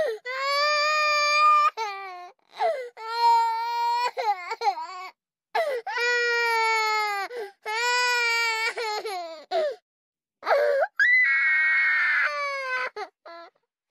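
A baby crying: a string of long, high-pitched wails, each held for a second or so with short breaks for breath, and a rougher, hoarser cry near the end.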